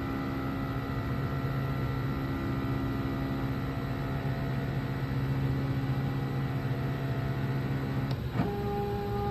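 CNC Shark's Z-axis stepper motor whining steadily as it slowly lowers the end mill onto the touch plate to find Z zero. About eight seconds in, the whine cuts off at contact with a small click, and a higher-pitched whine starts as the axis moves again.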